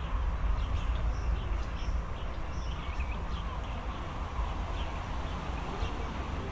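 ScotRail Class 170 diesel multiple unit running at a distance, heard as a steady low rumble, with birds chirping over it.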